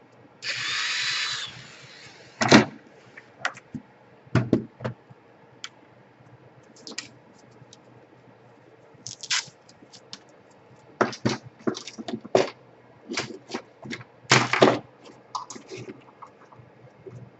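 Clicks, taps and knocks of hand work on a laptop's plastic case and its screws as it is being closed up after a DC power jack replacement. About half a second in there is a brief hissing whir lasting about a second, and the loudest knocks come around two and a half seconds and fourteen and a half seconds in.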